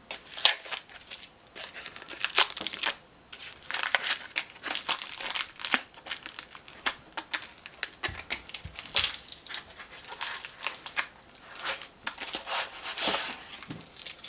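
Hands crinkling and rustling a paper-and-tape cover on a billhook blade, with scratchy handling of the hay-twine wrap on its handle: irregular, rapid crinkles and rasps.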